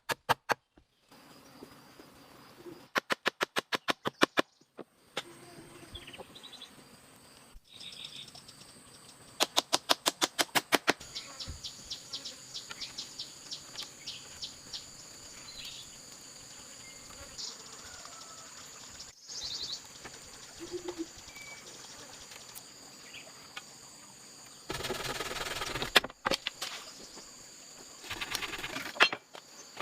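Forest ambience with a steady high insect drone. Two short runs of rapid, evenly spaced clicks or knocks come early on, and a brief dense rustle follows near the end.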